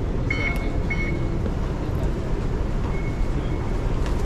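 Background noise of an underground MRT station heard while walking through it: a steady low rumble, with two short high-pitched beeps in the first second and another about three seconds in.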